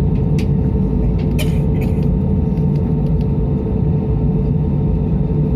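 Steady low rumble of an Airbus A320-200's engines and airflow heard inside the passenger cabin, with a constant hum under it and a few faint clicks or rattles in the first couple of seconds.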